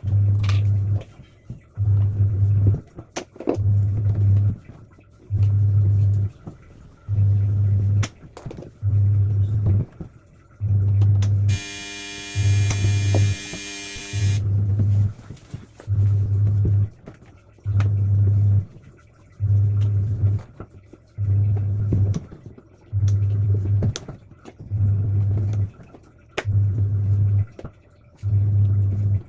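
Background music with a slow, heavy bass pulse about once a second. A bright, sustained synth chord sounds for about two seconds near the middle.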